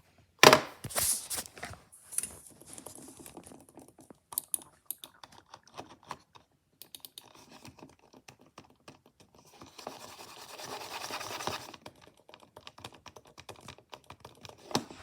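Computer keyboard being typed on: a stream of irregular key clicks, the loudest about half a second in. About ten seconds in there is a rushing noise lasting roughly two seconds.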